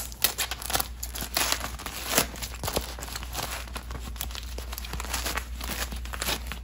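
Plastic and foam packing wrap crinkling and tearing as scissors cut open a wrapped bundle, an irregular run of crackles with a couple of sharper snaps, one right at the start and one about two seconds in.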